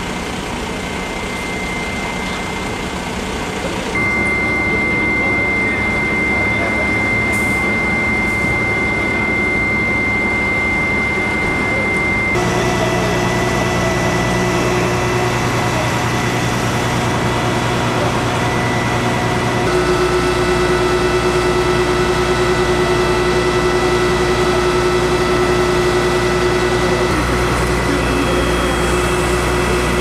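Fire truck engines running steadily at idle: a constant engine drone with a thin high whine over it, the mix changing abruptly three times.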